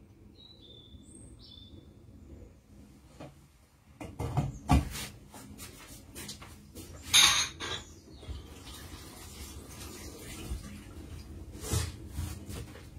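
Kitchen handling sounds: knocks and clatter of pots and utensils, with a sharp burst of noise about seven seconds in. Before that, faint high chirps.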